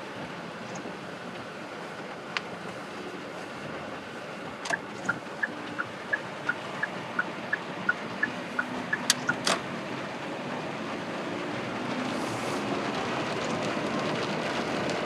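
Steady noise of a vehicle driving in rain, swelling in the last few seconds. A run of about a dozen even clicks, about three a second, comes from about five to nine seconds in, followed by two sharper clicks.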